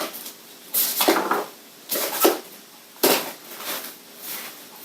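Small packaged products being handled and set down: about five short clatters and rustles.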